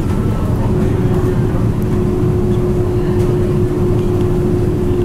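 Sightseeing icebreaker Aurora under way through drift ice, heard inside its cabin: a steady low engine and hull rumble with a constant hum.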